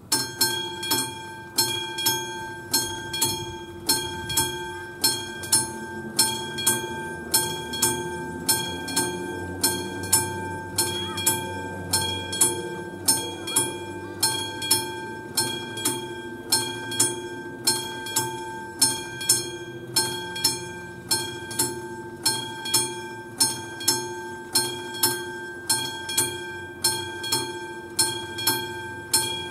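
Level-crossing warning bell, the classic electromechanical bell of an AŽD 71 crossing, starting suddenly and striking in a steady, rapid rhythm with each ring lingering: the crossing has activated to warn of an approaching train.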